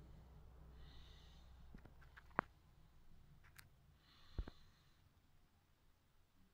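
Near silence, broken by a few small clicks, the loudest about two and a half seconds in, and a couple of soft, breath-like hisses.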